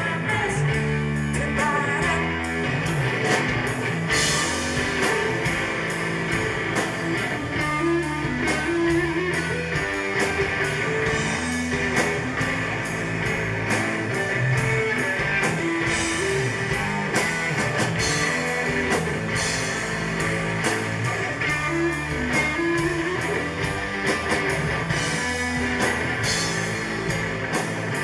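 Live rock band playing loud and steady: electric guitar, bass guitar and a drum kit with regular cymbal hits.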